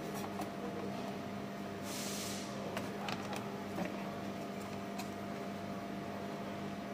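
Steady machine hum, with a short hiss about two seconds in and a few faint taps and clicks as a touchscreen glass and an LCD circuit board are set into a plastic control-panel housing.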